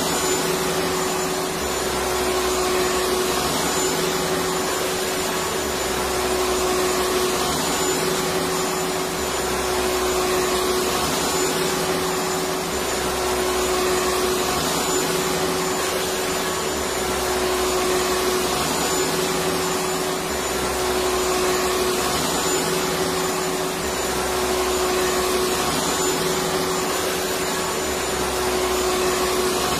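Electric vacuum cleaner motor running continuously: a steady whooshing hiss with a constant hum, swelling slightly about every two seconds.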